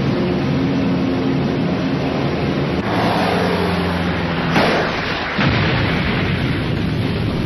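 Cartoon sound effects of four-engine propeller bombers droning overhead, then a falling whistle and a sudden explosion about four and a half seconds in, followed by a rumbling blast as the bombs hit.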